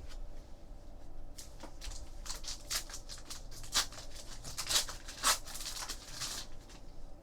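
Panini Prizm baseball cards handled and flicked through one after another: a quick run of short papery swishes and snaps, with a few sharper ones in the middle.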